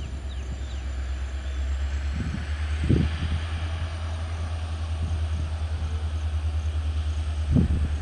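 WDP4D EMD diesel locomotive's 16-cylinder two-stroke engine running with a steady low drone as the train pulls away at low speed. A few dull thumps stand out, about three seconds in and near the end.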